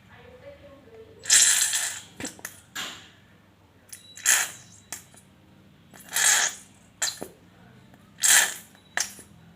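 A plastic squeeze bottle being squeezed to dispense slime ingredients, sputtering air and liquid in four hissy spurts about two seconds apart, with small plastic clicks in between.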